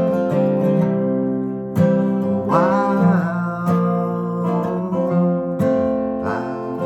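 Acoustic guitar strummed in a steady chord pattern, in the instrumental gap between sung lines of a folk song. Over it, a short phrase bends in pitch about two and a half seconds in and again near the end.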